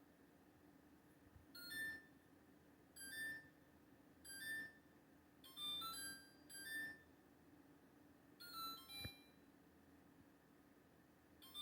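LG LFX25960ST refrigerator's control panel beeping on its own, a fault: short electronic chirps roughly every second or so, with a pause near the end, over a steady low hum.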